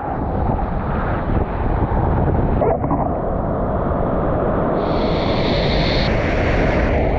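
Wind buffeting an action camera's microphone, with water rushing under a stand-up paddleboard as it rides a breaking wave. A brighter hiss of spray joins about five seconds in.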